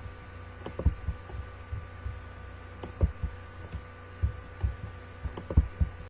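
Irregular soft low thumps and knocks, two or three a second, over a steady electrical hum with a thin high tone.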